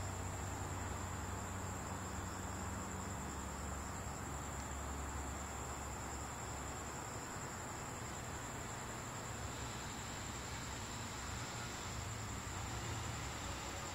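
Steady background noise: a constant high-pitched whine over an even hiss and a low hum.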